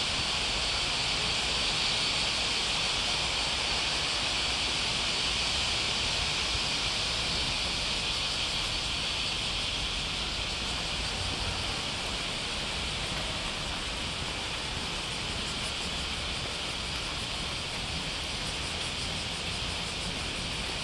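Steady high-pitched hiss with no breaks, easing a little about halfway through.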